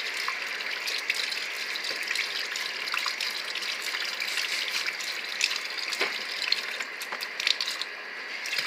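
Kitchen faucet running a thin stream of water into a metal sink, a steady splashing and spattering.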